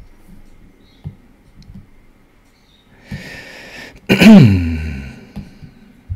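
A person sneezing once, close to the microphone: a noisy in-breath, a short catch, then a loud sneeze whose voice falls in pitch as it dies away.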